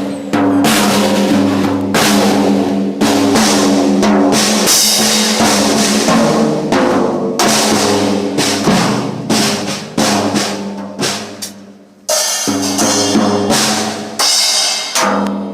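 A drum kit being played loud, hit after hit with bass drum and snare, over pitched notes that change in steps like a backing track. The playing drops away briefly about twelve seconds in, then starts again.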